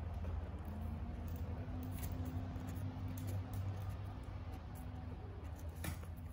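Soft wet licking and rustling as a mother cat grooms her nursing kittens on a sheet of cardboard, over a steady low hum, with a couple of short ticks, the clearest near the end.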